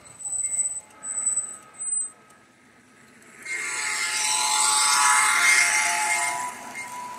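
G-scale model trains running on track: short, intermittent wheel squeals in the first two seconds, then after a brief lull a model diesel locomotive and its cars run close by for about three seconds with a loud whirring and rattling of motor and wheels, easing off near the end.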